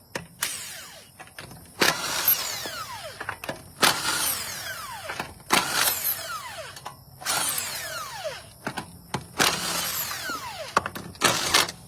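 Cordless power tool run in about seven short bursts, each winding down with a falling whine after the trigger is released.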